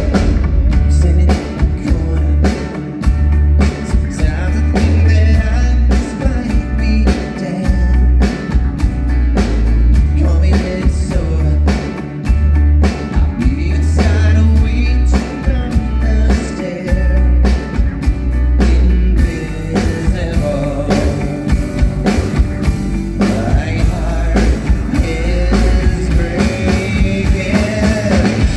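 Live rock band playing through the venue PA during a sound check: a heavy bass line and drum kit beat, with the sound filling out and a melody line coming in over the top about two thirds of the way through.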